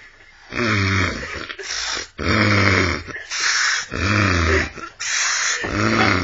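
Loud, heavy snoring: four long buzzing snores about one and a half seconds apart, with hissing breaths between them.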